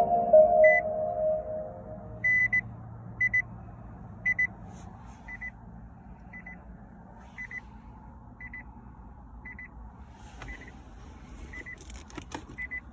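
Electronic chime in a 2017 Nissan Leaf: a chord of several tones fades out over the first two seconds, then short high beeps follow about once a second.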